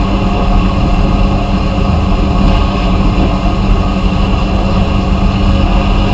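Vapor blasting equipment running: a loud, steady machine hum with a strong low tone and a hiss of blasting noise above it.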